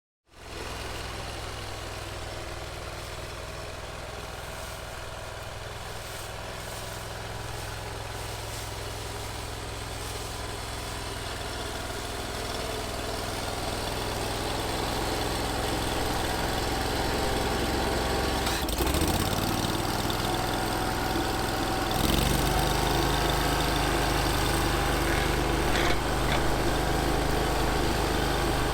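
Vermeer SC362 stump grinder's engine running steadily and gradually growing louder. Its pitch wavers about 19 seconds in, and it jumps louder about 22 seconds in.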